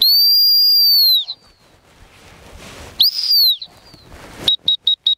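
Dog-training whistle: one long blast of about a second, a shorter blast about three seconds in, then a rapid string of short toots near the end, calling a ranging bird dog back in.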